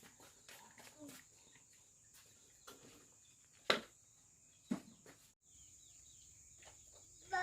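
Faint outdoor ambience: a steady high hiss like insects, with a few faint chirps, and two sharp knocks about a second apart near the middle.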